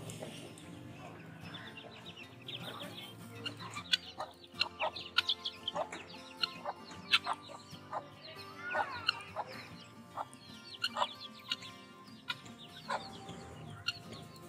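Chicks peeping and hens clucking: a busy scatter of short, high calls, thickest after the first few seconds.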